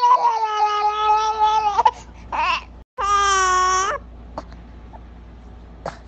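A baby's voice making long, held vocal sounds at a steady pitch. One drawn-out note ends about two seconds in. A short wavering sound follows, then, after a brief dropout, another held note of about a second.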